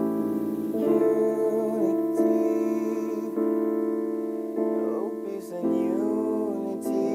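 Song intro: sustained electric keyboard chords changing every second or two, with a wordless singing voice gliding over them.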